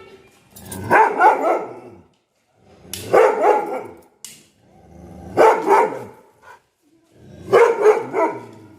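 Dog barking angrily in four bouts about two seconds apart, each a quick run of barks.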